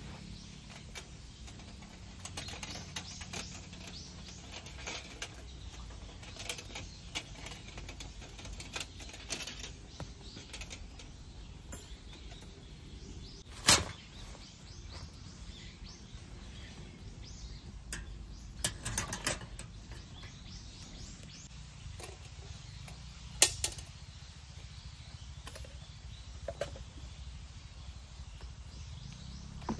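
Folding steel fire grill being unfolded and set up, its thin plate and wire legs clinking and rattling. There are light, scattered clicks, then three sharp metal clinks stand out: one near the middle, and two more about five and ten seconds later.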